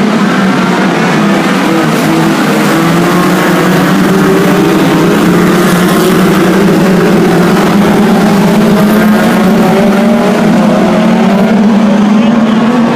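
A pack of BriSCA Formula 2 stock cars racing round the oval, many engines running at once, their overlapping notes rising and falling as the cars pass.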